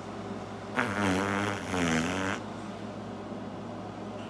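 A man makes a low, wavering, buzzing noise with his mouth against a puppy's belly, starting about a second in and lasting about a second and a half, over a faint steady hum.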